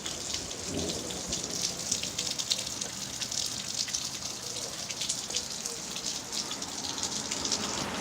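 Steady rain of a thunderstorm, with many close individual drop impacts ticking over the hiss.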